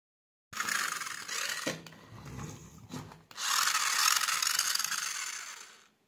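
Toy remote-control car's small electric motor and plastic gearbox running with the wheels spinning free in the air: a high, noisy whirr in two runs, from about half a second in to nearly two seconds, then again from about three seconds until it winds down near the end.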